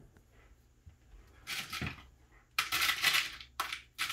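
Light metal clinking and rattling in several short bursts as a steel drawer slide is handled and its runners moved.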